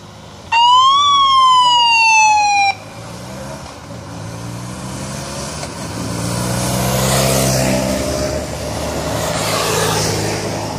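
A police siren gives one loud whoop lasting about two seconds, rising briefly then falling in pitch and cutting off suddenly. Then motorcycle engines grow louder as escort motorcycles ride past, swelling around the middle and again near the end.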